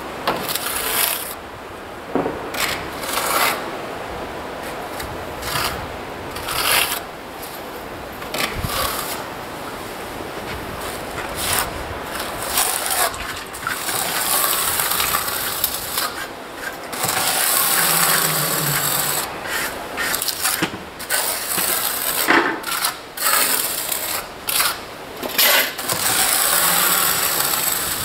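Repeated rough scraping and rubbing strokes of a hand tool on the wall's surface, as in work with a plastering trowel on the insulation and adhesive, with irregular pauses and louder stretches in the middle and near the end.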